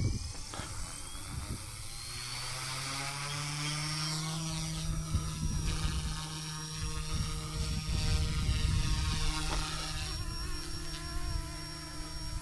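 GOOSKY S2 electric RC helicopter spooling up: the motor and rotor whine rises in pitch over the first few seconds, then holds a steady pitch as it flies.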